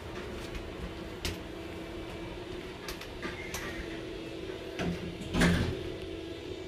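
Steady hum inside a cruise ship's passenger elevator, with a few light clicks and one louder thump about five seconds in.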